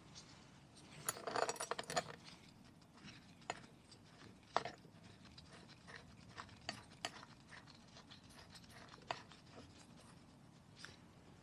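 Light metallic clicks and clinks of a spanner on the axle lock nut of a moped's spoked front wheel: a quick cluster about a second in, then single ticks every second or two.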